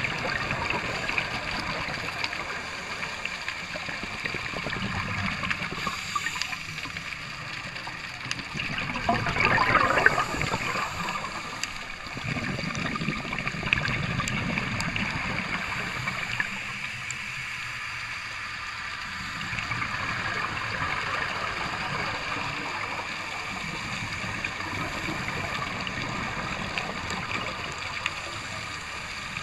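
Underwater sound of scuba gear: regulator breathing with exhaled bubbles gurgling, swelling and fading every few seconds, with a louder rush of bubbles about ten seconds in.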